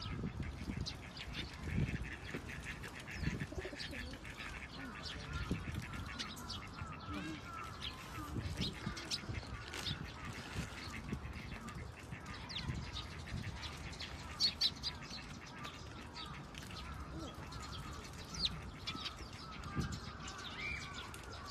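Small birds chirping again and again in short high notes, with scattered low thumps and bumps close to the microphone.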